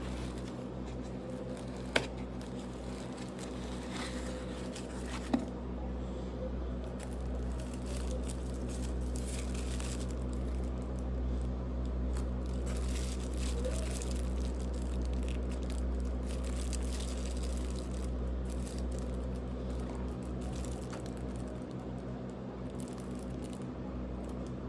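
Clear plastic wrapping crinkling and rustling as a boxed collectible action figure is handled and lifted out of its foam tray, with two sharp clicks about two and five seconds in, over a steady low hum.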